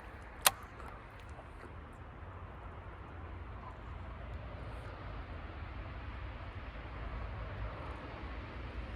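A single sharp click about half a second in, then a steady low rumble with a light hiss.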